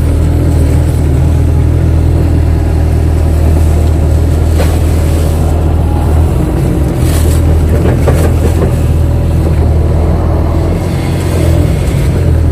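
Kato excavator's diesel engine running steadily under working load, heard from inside the cab as the machine digs and swings mud. A few short knocks come about halfway through.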